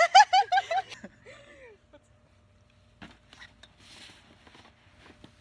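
A high voice giving a quick run of about six short, rising-and-falling yelps in the first second, then one lower falling cry, after which there are only faint outdoor sounds.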